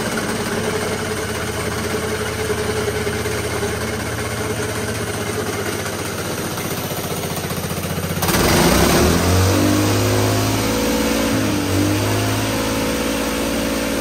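Small single-cylinder petrol engine converted to hydrogen, running on a petrol and hydrogen mix. It idles steadily, then about eight seconds in it gets louder and its pitch rises and falls as it is revved, before settling at a higher speed. It runs without trouble on this mix.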